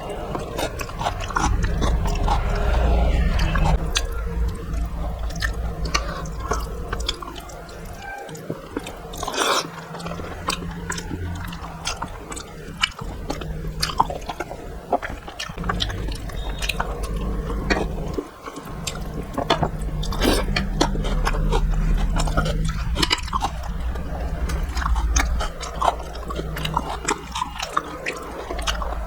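Close-miked eating sounds: chewing and lip-smacking with many quick wet mouth clicks, over a low rumble.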